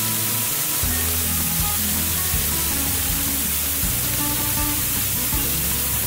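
Waterfall pouring over a rock ledge, a steady rushing hiss, with background music playing underneath.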